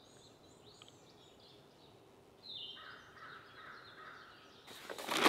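Wild birds calling in woodland: faint short chirps at first, then a louder, more sustained bird call from about two and a half seconds in. A short rustling noise just before the end.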